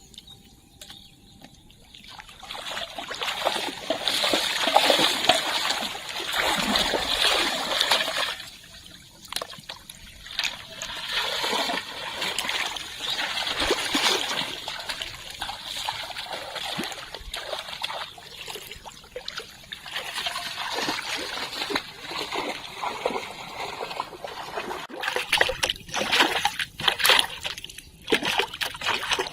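Water splashing and trickling in irregular spells, with short sharp splashes, as of water being stirred or poured by hand in shallow water.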